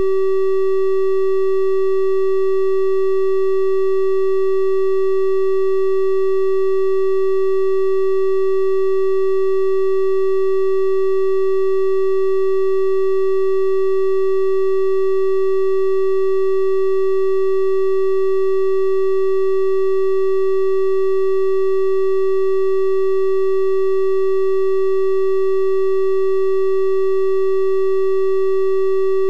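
A synthesized 384 Hz triangle-wave tone, held perfectly steady: a pure hum at the fundamental with faint odd overtones above it.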